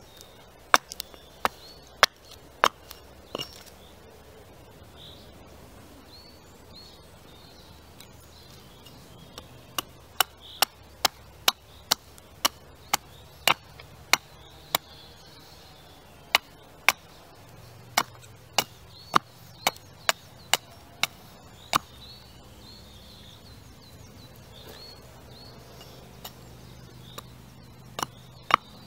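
Carving axe hewing a wooden spoon blank held upright on a chopping stump: runs of sharp chops about two a second, broken by pauses of several seconds.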